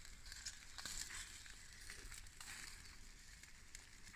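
Chicken sizzling faintly on a barbecue grill, a soft steady hiss with scattered small crackles.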